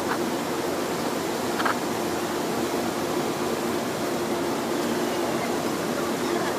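Steady hum and whir of an Amtrak Pacific Surfliner bi-level train car's onboard equipment running as the train stands at the platform. A few low, even tones sit over a wash of noise.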